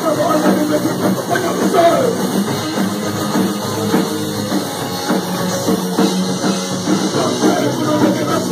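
Oi! punk rock band playing live, drum kit and electric guitar going steadily through a passage without vocals.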